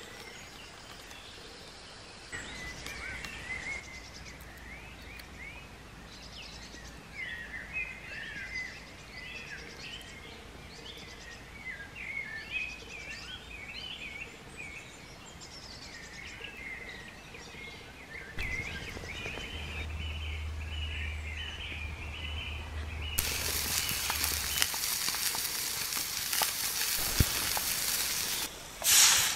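Woodland birds singing, with many short chirping phrases. About three-quarters of the way through, a louder steady sizzling starts: a frying pan over the campfire. It cuts off near the end.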